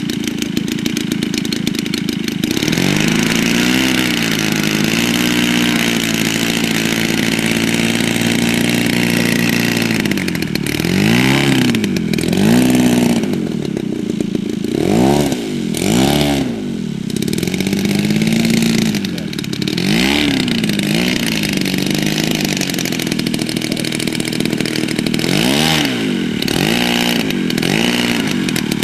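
Engine of a half-scale radio-controlled Fokker D.VI biplane running on the ground. It picks up to a steady speed a couple of seconds in, then is revved up and down in a series of throttle blips. This is a run-up check of the repaired model before its test hops.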